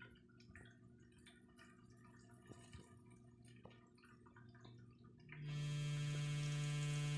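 Toilet refilling after a flush with an abnormal noise: a loud, steady humming tone with many overtones, the kind of hum a faulty fill valve makes. The hum breaks off for about five seconds, leaving only soft drips and trickles, then starts again.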